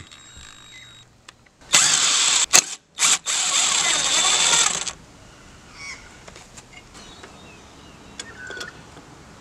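Impact driver hammering in two bursts, the first about a second long and the second about two seconds, undoing the rusted bolts that hold a mower blade.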